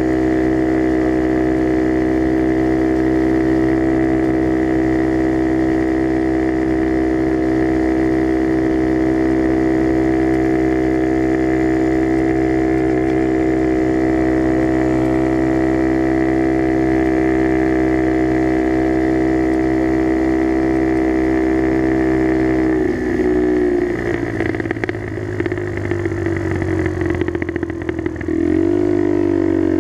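Skyteam Dax mini motorbike engine running through an aftermarket carbon exhaust, holding a steady note while cruising. About 23 seconds in, the engine note drops and turns rough and uneven, with crackles and pops from the exhaust as the throttle closes. Near the end it settles into a steady, lower-pitched note.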